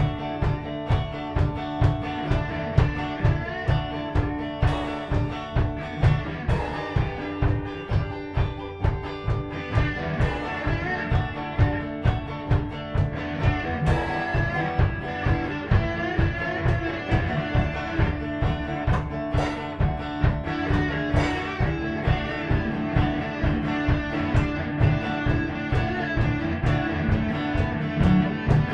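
Instrumental rock played live by two guitars over a drum kit: a steady beat of about two drum hits a second under sustained guitar notes, with cymbal crashes now and then.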